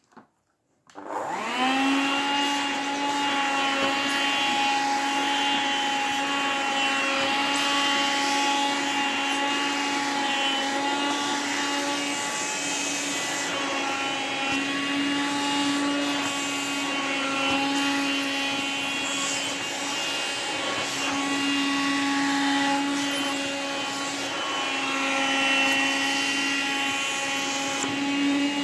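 A vacuum cleaner switches on about a second in, its motor whine rising and settling into a steady pitch. It is drawn over a duvet in a crinkly high-density anti-mite cover that the suction pulls hard against the nozzle, so the motor note shifts slightly as the fabric catches and releases.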